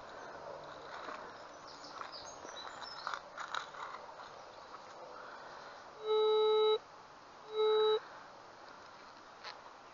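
Metal detector sounding two short, steady low beeps about six and seven and a half seconds in, the first longer than the second, over ground the detectorist finds littered with iron. Before them, faint scraping and clicking of a spade in leafy soil.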